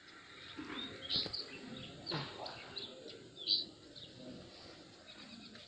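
A small bird chirping, a few short high chirps, the loudest about a second in and again about three and a half seconds in.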